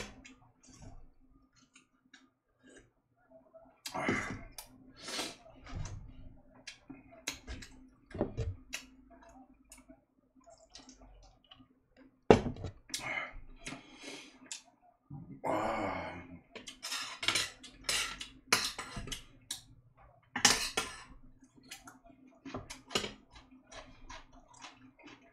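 Cutlery clinking and scraping on dishes while eating, in scattered short clicks and a few louder knocks, over a faint steady hum.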